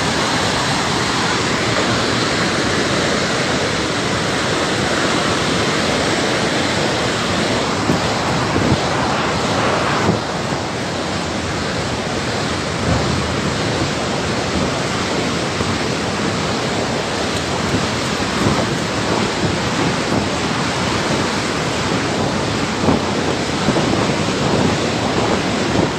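Floodwater rushing in a torrent: a loud, steady roar of churning water, dipping slightly in level about ten seconds in.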